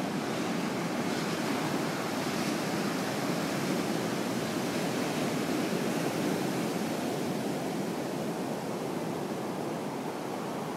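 Pacific surf breaking and washing up a flat sandy beach: a steady rushing of waves, easing slightly in the second half.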